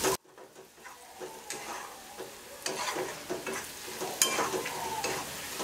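Metal spatula stirring and scraping frying onions, chana dal and spice mix around a kadhai, with a light sizzle of oil underneath and a few sharper scrapes against the pan.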